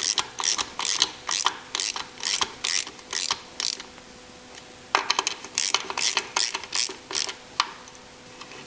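Hand ratchet clicking in quick, evenly spaced bursts, about three a second, as it runs in a timing chain guide rail bolt. It stops for about a second midway, then clicks again and stops a second before the end.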